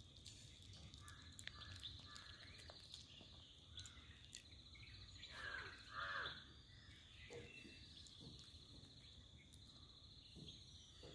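Faint outdoor ambience: a steady high insect trill, with a bird calling twice about halfway through.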